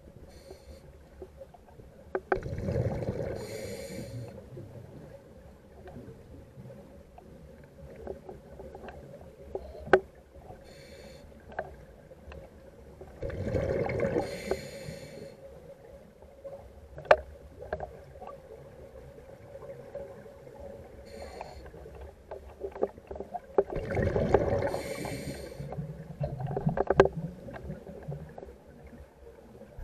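Ambient soundtrack of a video installation played through a loudspeaker: three slow swells of noise, one about every eleven seconds, over a faint steady hum, with scattered sharp clicks.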